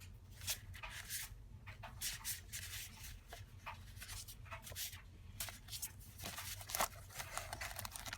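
Paper and cellophane packaging rustling and crinkling as sheets of paper ephemera are handled and shuffled through, in short irregular bursts.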